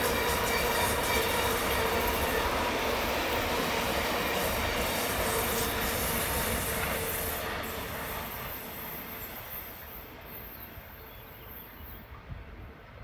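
Long intermodal freight train of container wagons rolling past on a curve, its wheels squealing in steady high tones over the rumble of the wagons. The sound fades away over the last few seconds as the end of the train passes and draws off.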